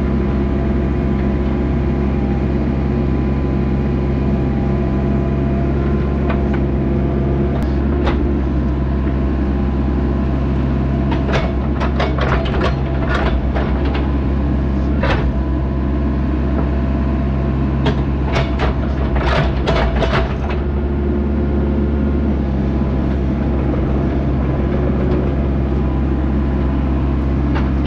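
Diesel engine of a compact construction machine running steadily under work. Short knocks and scrapes come several times in the middle stretch as the bucket works through dirt and stone.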